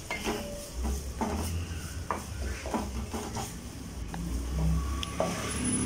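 Wooden spatula stirring and scraping chopped onions around an aluminium pot as they sauté in oil: a handful of separate scrapes and knocks over a low rumble.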